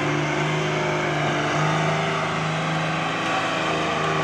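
Truck engine running with a steady low drone as the truck manoeuvres slowly.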